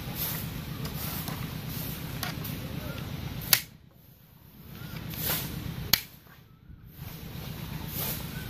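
Two sharp snaps, about two and a half seconds apart, from the springy bamboo strip of a homemade bamboo toy gun being bent and let go, over a steady low background hum.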